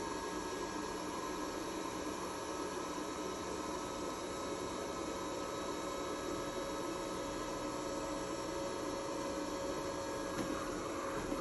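Robot vacuum cleaner running: a steady whir with a few thin, even whining tones from its motor and fan.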